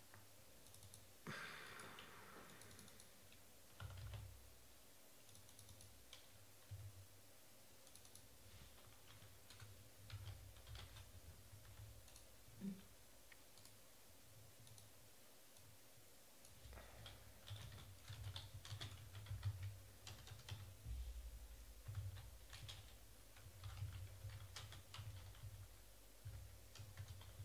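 Faint computer keyboard typing and clicking, sparse at first and coming in quicker runs in the second half, with soft low thumps.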